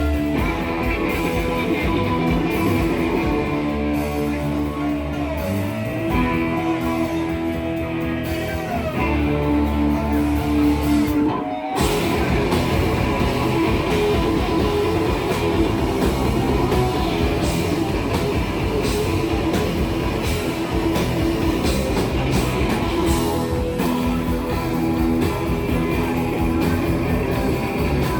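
Live rock band playing: electric guitar with held, bending notes over bass and drums. About twelve seconds in there is a brief sharp break, and then the full band comes back in denser and heavier.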